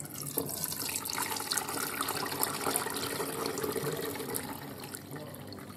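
Hot gravy and oxtail pieces poured from a cooking pot into the perforated strainer top of a fat separator, the liquid splashing and draining through the holes with many small drips and splats, easing off toward the end.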